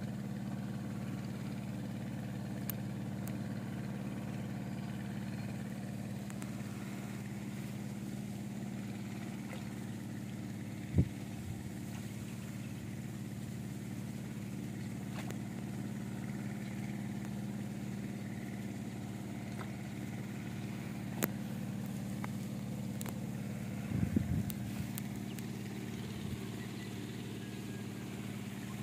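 An engine running steadily, a constant droning hum, with one sharp knock about eleven seconds in and a short clatter of knocks a few seconds before the end.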